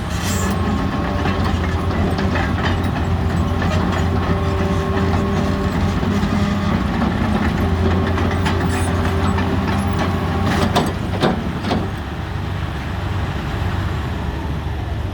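Hitachi EX270 tracked excavator's diesel engine running steadily, with a few sharp knocks about eleven seconds in, after which it runs a little quieter.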